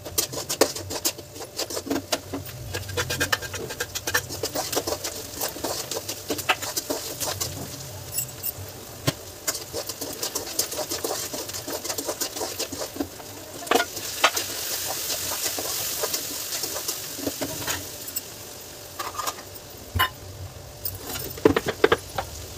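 A metal spoon stirring and scraping in a metal kadhai, with many quick clinks and taps over a light sizzle of frying. A few louder knocks come near the end.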